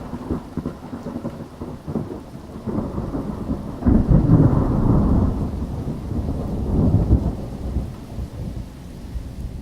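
Thunderstorm: thunder rumbling over steady rain, swelling to a loud peal about four seconds in and again around seven seconds.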